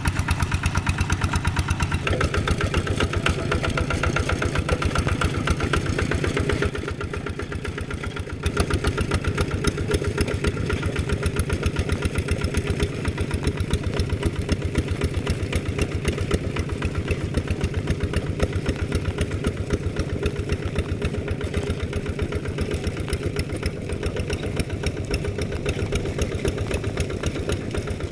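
Kubota RD110DI single-cylinder diesel engine of a walking tractor running steadily, a fast, even chugging of firing strokes. It drops briefly in level about seven seconds in.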